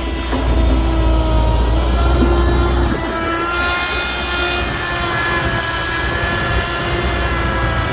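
Excavator engine running steadily with a heavy low rumble that eases about three seconds in, and a whine wavering in pitch over it.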